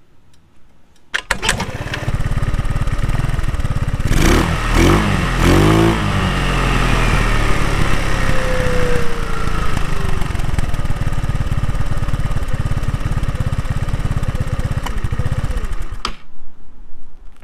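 Small scooter engine starting about a second in, revved several times, then running steadily through its exhaust before cutting off about sixteen seconds in.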